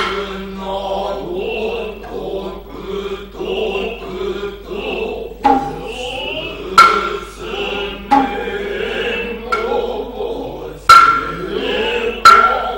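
Noh chorus chanting in low, sustained male voices, with sharp strikes of the Noh tsuzumi hand drums. The drum strikes come mostly in the second half, roughly one every second and a bit.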